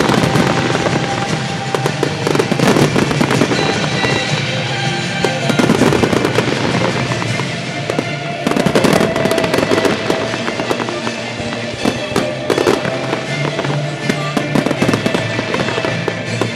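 Aerial fireworks shells bursting and crackling in dense rapid succession, with music playing underneath.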